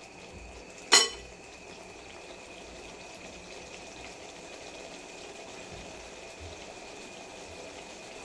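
Mustard, tomato and poppy-seed paste bubbling and sizzling softly in a metal kadai as it is fried until the oil separates. A spatula knocks once against the pan about a second in.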